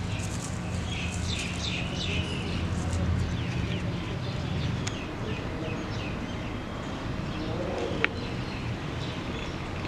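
Small birds chirping over and over, short high calls, over a low steady hum that fades about halfway through; a single sharp click about eight seconds in.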